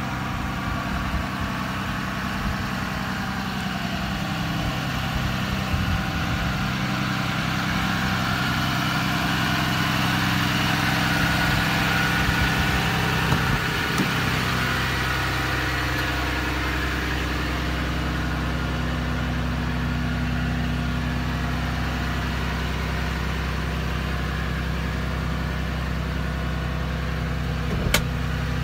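The 6.7-litre Cummins turbo-diesel of a 2012 Ram 5500 idling steadily. It is heard first from outside the truck, then from inside the cab, where its tone shifts a little about halfway through. A single sharp click comes near the end.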